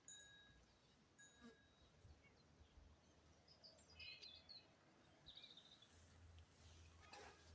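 Near silence: faint outdoor ambience with distant birds chirping a few times, and a brief soft noise near the end.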